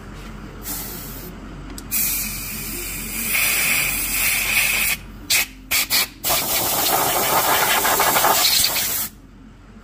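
Compressed-air blow gun hissing in repeated blasts, blowing debris out of the crankshaft's pilot bushing bore. A short blast is followed by a long one, then a few quick squirts, then a last long, loud blast that cuts off near the end.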